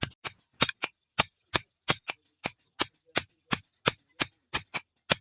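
Hammer striking leaf-spring steel on an anvil in a steady forging rhythm, about three to four ringing metallic blows a second.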